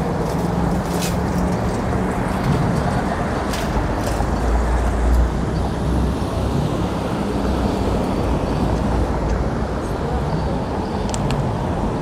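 Steady city traffic at an intersection: car engines and tyres passing, a low rumble that swells as a vehicle goes by about halfway through, with a few short sharp clicks.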